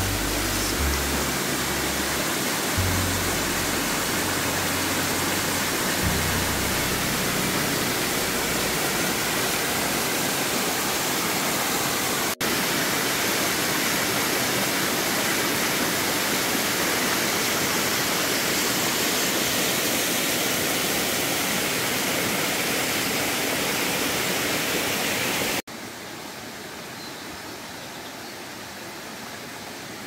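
Rushing water of a mountain waterfall pouring over rock ledges into a stream: a dense, steady hiss of falling water. About 26 s in it cuts abruptly to a quieter, shallower stream flowing over stones.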